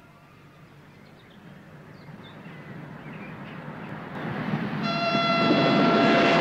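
Electric train approaching and passing close by, its rumble growing steadily louder. About five seconds in, its horn sounds one long, steady blast.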